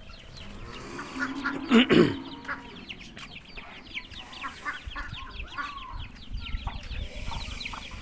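A flock of chickens clucking while they feed, with many short high chirps throughout. A loud, sharp sound stands out twice, just before two seconds in.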